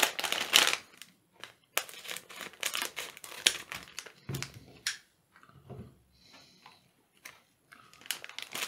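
Foil-plastic LEGO Minifigures blind bag crinkling as it is snipped open with scissors and then handled. The crackling comes in irregular bursts, thicker in the first half and sparser after.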